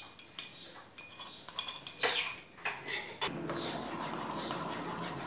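A metal spoon clinking against a bowl several times, then stirring thick mango firni (rice pudding) with a steady scraping, as cardamom powder is mixed in.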